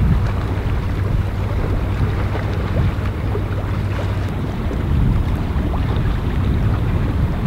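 Wind rumbling on the microphone, with a steady low drone underneath.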